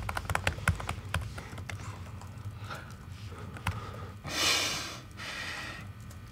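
Typing on a MacBook laptop keyboard: quick, irregular key clicks, with a brief rush of noise a little past four seconds in.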